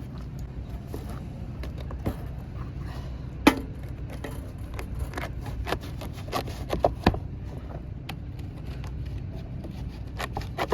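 Scattered knocks, clicks and scrapes of hand tools prying a gooseneck roof vent loose from rubber roof shingles, with a sharper knock about three and a half seconds in and another about seven seconds in, over a steady low rumble.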